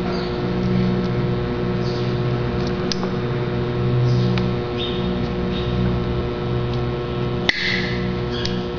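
Steady electrical hum with several fixed tones, with a few faint clicks of handling and one sharper click about seven and a half seconds in.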